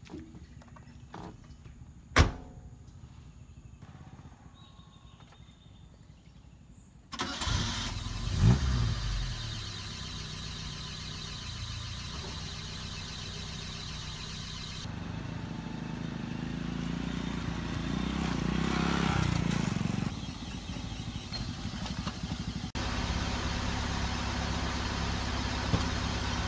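A car door shuts with a single knock about two seconds in. About seven seconds in, the car engine is cranked and starts, then runs steadily. It grows louder for a few seconds before dropping back to an idle.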